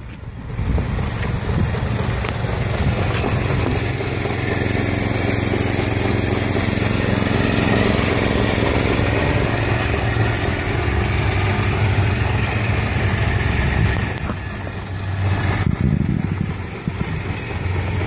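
Iseki walk-behind rice transplanter's small engine running steadily as the machine travels along, briefly quieter about fourteen seconds in.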